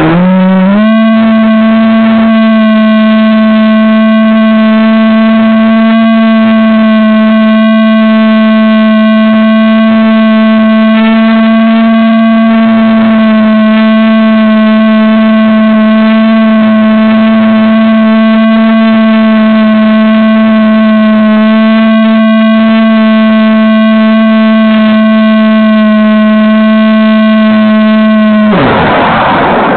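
A steady, loud electric buzz. It rises in pitch over the first second, then holds one note for nearly half a minute and cuts off abruptly near the end.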